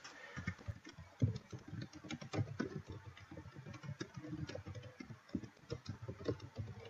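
Typing on a computer keyboard: an uneven run of quiet key clicks, several a second.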